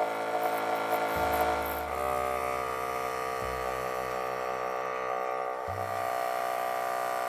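Toy motorized airbrush buzzing as it sprays paint, stopping about two seconds in, over background music with sustained chords.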